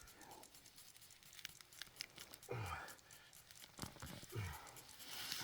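A potato plant being pulled up out of the soil by hand: scattered crackling and tearing of stems and roots with soil crumbling, and a few short dull low sounds partway through.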